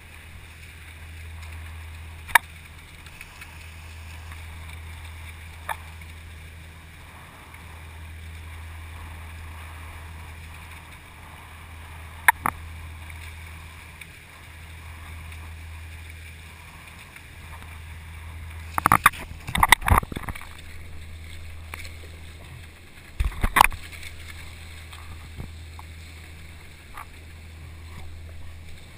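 Water rushing and splashing past a surfski's hull as it is paddled through chop and a dredger's wake, with a steady low rumble under it. Sharp knocks come now and then, the loudest in a cluster about two-thirds through and again a few seconds later.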